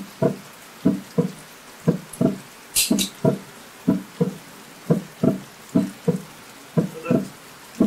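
A drum beating a slow, heartbeat-like rhythm, two deep beats about once a second, as tension music. About three seconds in there is a brief sharp double click.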